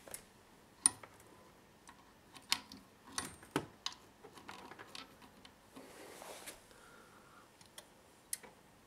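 Audio cable plugs being pulled from and pushed into the back of a headphone amplifier: several sharp clicks and knocks, with soft cable rustling between them. The mains hum stays silent while the interconnects are unplugged.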